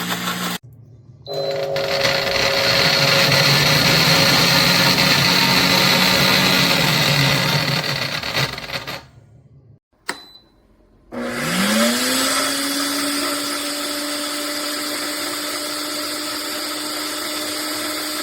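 Enfmay 2000W jug blender blending a piña colada: it runs loudly for about seven seconds and stops, then spins up again with a rising whine and runs steadily.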